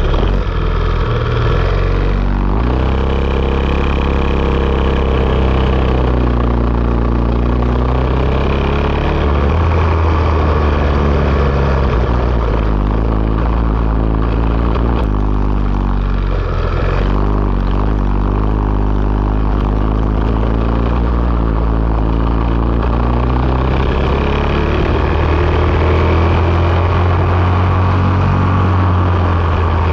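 Racing kart engine recorded onboard, running continuously with its pitch rising and falling again and again as the kart accelerates and lifts.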